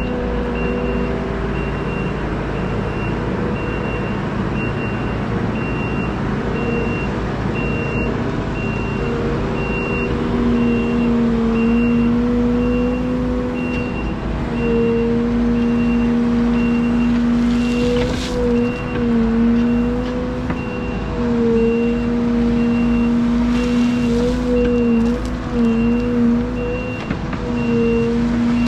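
Liebherr A913 Compact excavator's engine and hydraulics working, a steady drone whose pitch wavers and dips as the grading beam is moved and loaded. A faint high beep repeats about twice a second throughout.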